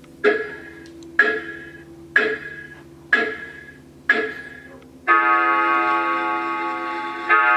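Animated grandfather clock Halloween decoration playing its recorded clock chime: one bell-like note struck five times, about once a second, each ringing away. About five seconds in, a held, many-toned organ-like chord starts, with a new chord near the end.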